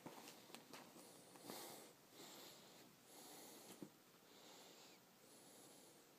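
Quiet soft swishes, about five of them, with a few light taps: a kitten scrambling and pouncing on a bedsheet.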